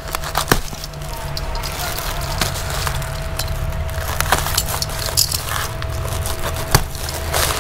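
Woven plastic sack rustling and crackling as its stitched seam is cut and pulled open by hand, with about four sharp snaps spread through.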